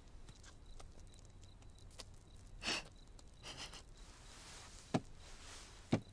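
Quiet room tone with a few faint, short, soft sounds in the middle and two small sharp knocks about a second apart near the end.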